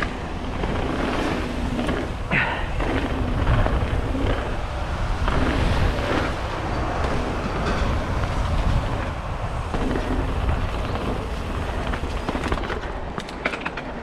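Mountain bike, a 2018 Intense Recluse with 27.5-inch wheels, rolling fast down a loose gravel and leaf-strewn dirt trail: a steady rumble and rattle of tyres and bike over the stones and bumps. Near the end it gets quieter, with a few sharp clicks.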